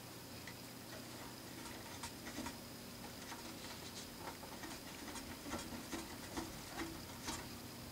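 Faint, irregular small clicks and scratches of a small screwdriver turning a tiny screw into a scale model car's frame.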